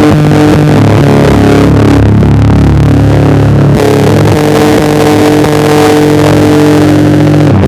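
Electric bass played through a Darkglass Microtubes B3K overdrive and an SMFR fuzz pedal: a heavily distorted doom riff of long held notes, moving to a new held chord about four seconds in.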